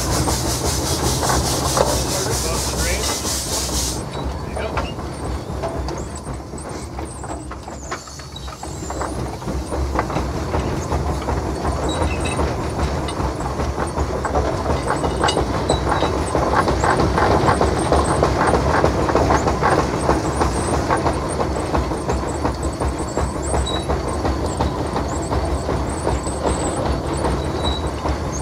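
Steam traction engine under way: steam hissing loudly, cutting off suddenly about four seconds in, then the running engine and its gearing clattering steadily over a low rumble as it drives.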